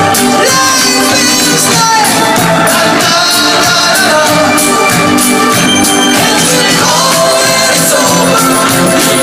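Loud music with singing over a steady drum beat.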